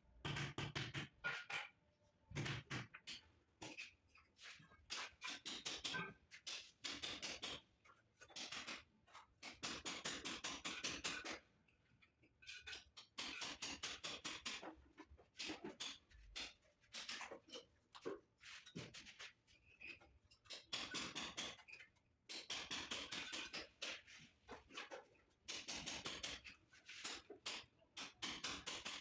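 Metal trowel scraping and scooping cement mortar against the edge of a marble stair tread, in repeated scratchy strokes of a second or two each with short pauses between. A few low knocks in the first seconds.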